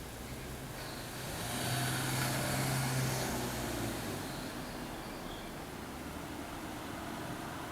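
A motor vehicle passing by: its engine hum and tyre noise swell about a second in, peak, and fade away over roughly three seconds.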